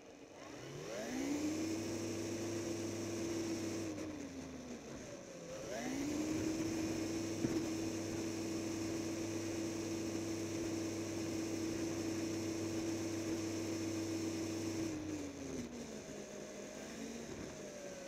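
Remote-control truck's drive motor and gears whining as it drives, heard from on board. The whine rises in pitch as it speeds up about a second in, holds steady, falls away around four seconds, then rises again near six seconds and runs steady until it winds down near the end, with one sharp tick partway through.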